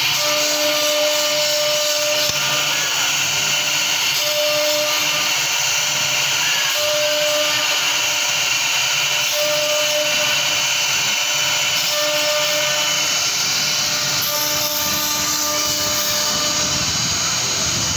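CNC router spindle running at high speed, its fine engraving bit cutting into a wood panel: a steady, high, hissing machine whine. A short tone sounds every couple of seconds as the cut goes on.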